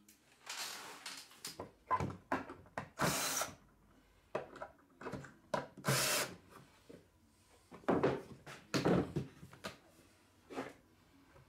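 Cordless drill running in a series of short bursts of a second or less, driving screws into wooden boards.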